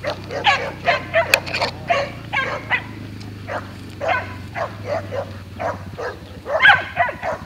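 Dogs barking in quick repeated short barks while baying a wild hog, loudest near the end.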